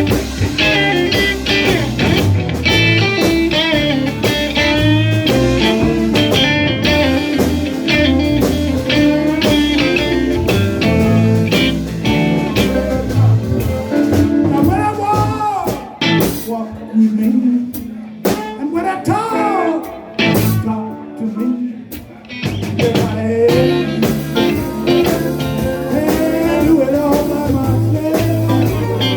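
Live blues band playing, with guitar over bass and drums. About halfway through, the bass and drums drop out and the guitar plays alone with bent notes, then the full band comes back in.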